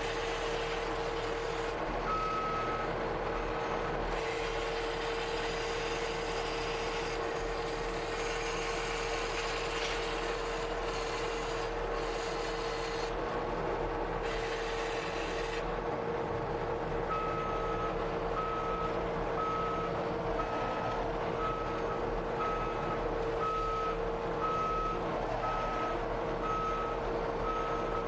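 Skid steer running steadily with an engine and hydraulic hum, its backup alarm beeping briefly early on and then repeating steadily through the second half as it reverses. Scraping and hissing come and go over it.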